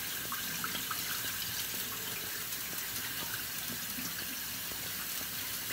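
Kitchen faucet running steadily into a saucepan of rice, the water splashing over the grains as they are rinsed to wash off the starch.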